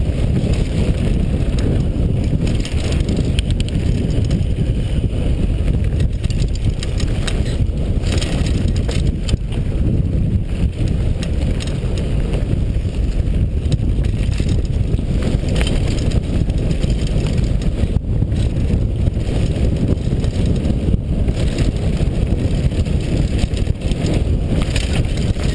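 Mountain bike rolling fast down a dirt singletrack, heard through a helmet camera: a steady low rush of wind on the microphone and tyres on loose dirt, with scattered clicks and rattles from the bike over bumps.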